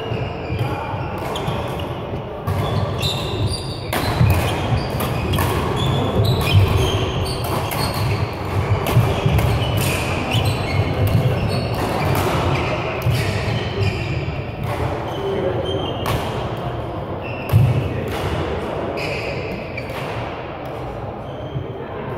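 Badminton doubles rally in a large echoing sports hall: sharp racket strikes on the shuttlecock and short squeaks of court shoes on the floor, over a steady low thudding of footsteps. One louder strike stands out late on.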